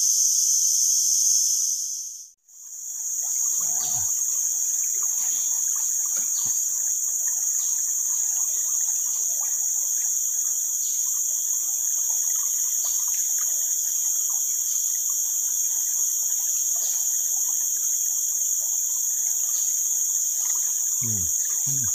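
Steady, high-pitched chorus of insects in tropical forest. It cuts out briefly about two seconds in and then comes back unchanged.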